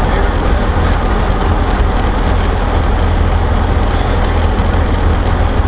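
Cessna 152's Lycoming O-235 four-cylinder engine and propeller running steadily, a loud low drone heard inside the small cockpit.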